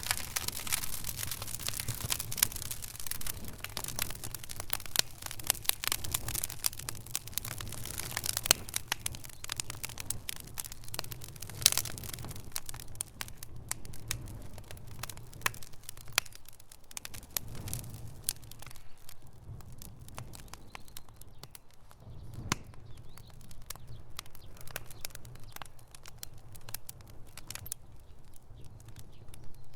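Campfire burning with irregular crackles and snaps, a few sharper pops among them, over a steady low rumble. The crackling is busiest in the first dozen seconds and thins out after.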